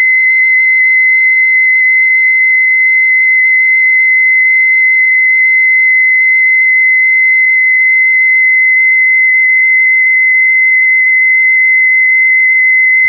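A steady, high, pure test tone from a tone test cassette playing on a boombox tape deck. Its pitch shows the deck's tape speed, and any wavering in it shows wow and flutter.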